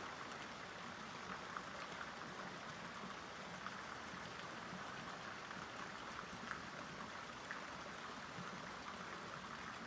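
Faint steady hiss of background noise, water-like, with a few soft small ticks scattered through it.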